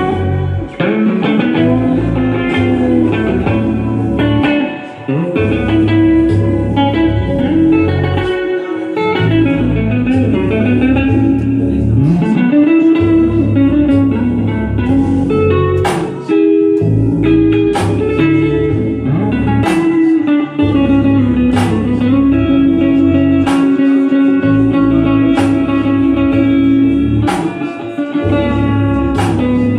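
Electric guitar playing a solo of bending, sliding notes over a backing beat whose deep bass drops out briefly about every four seconds, with sharp percussion hits coming in around the middle.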